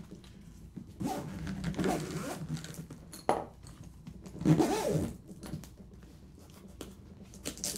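Zipper on a Gard leather alto saxophone case being pulled closed around the instrument in two long pulls, snug and straining, with a sharp click between them.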